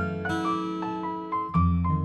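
Background piano music: a melody of single struck notes over held low bass notes, with a new bass chord about one and a half seconds in.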